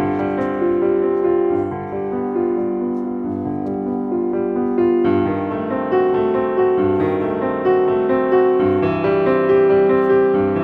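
Instrumental music on a keyboard instrument: a slow melody of held notes over sustained chords, with no voice.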